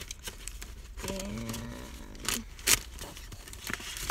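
A K-pop album being handled: booklet pages and packaging rustle, with several sharp clicks, the loudest near three seconds in. A person briefly hums a flat 'mm' from about a second in.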